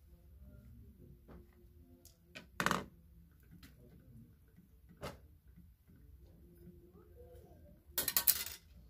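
Hard objects being handled while a child mannequin is dressed. There are a few sharp clacks, one about three seconds in and another about five, then a quick rattling clatter near the end.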